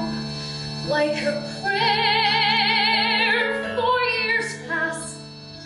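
A woman singing a musical-theatre ballad solo, holding a long high note with wide vibrato about two seconds in, over a sustained instrumental accompaniment.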